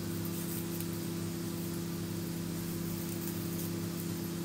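Steady machine hum with an even hiss, unchanging throughout, with faint taps of a small knife cutting through bell pepper on a cutting board.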